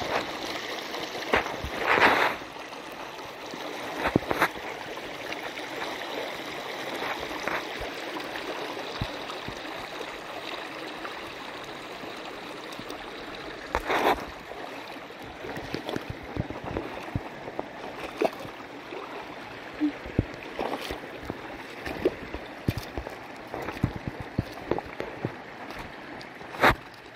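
Shallow creek running over layered rock ledges: a steady rush and gurgle of water, with a few brief sharp knocks, the loudest about halfway through and near the end.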